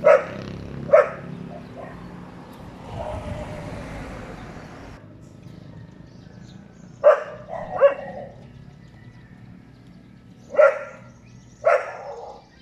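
A dog barking in short single barks, six in all, coming in three pairs with the two barks of each pair about a second apart.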